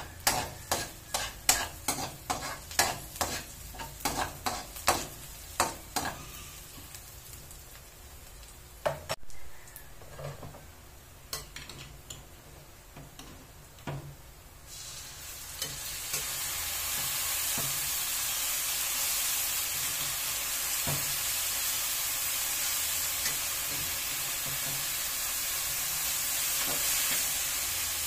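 Metal spoon scraping and clinking against an aluminium wok, about two strokes a second, as chopped onion sautés. About halfway through, cooked black rice goes into the hot wok and a loud, steady sizzle starts and holds.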